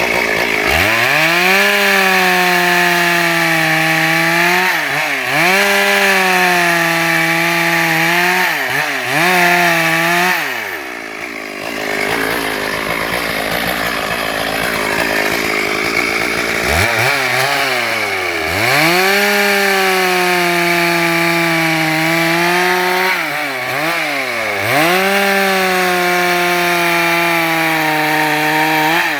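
Stihl MS 382 two-stroke chainsaw running at high revs while ripping planks from a log, its pitch dipping briefly now and then as the chain loads up in the wood. Near the middle the revs drop away for several seconds, then climb back up and the saw cuts again.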